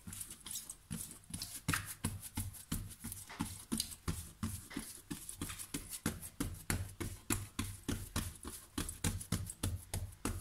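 Fingertips pressing and patting soft, proofed bread dough flat on a granite countertop, a quick, even run of soft taps, several a second.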